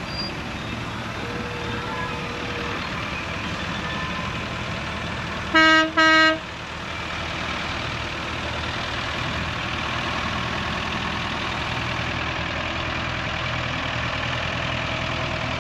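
A vehicle horn sounds two short loud blasts about half a second apart, over the steady running of vintage lorry engines.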